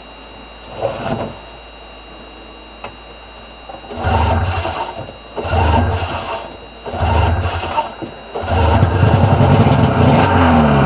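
1979 Ski-Doo Blizzard 5500 snowmobile's two-stroke engine idling, with a short rev about a second in. From about four seconds in it is revved in three short throttle blips, then held at high revs near the end as it pulls away.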